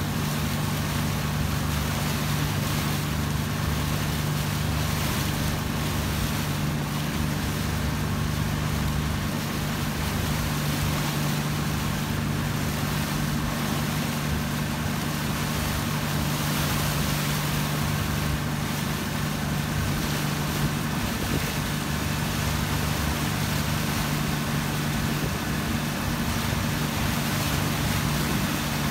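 A motorboat engine running at a steady speed, a constant low hum, under the rush of wind and water.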